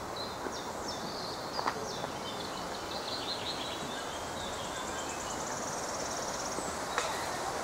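Outdoor woodland ambience: a steady background hiss with small birds chirping repeatedly and a fast, high trill later on. Two sharp clicks, one about two seconds in and one near the end.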